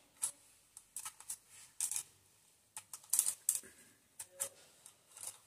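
Scattered light metallic clicks and scrapes of a screwdriver tip and the cam chain against the camshaft sprocket of a Hero Honda HF Deluxe engine, as the chain is eased onto the sprocket to set the valve timing.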